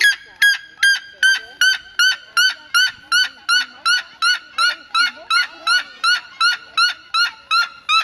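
Red-legged seriema calling: a long, even series of loud yelping notes, about two and a half a second, sliding slowly a little lower in pitch.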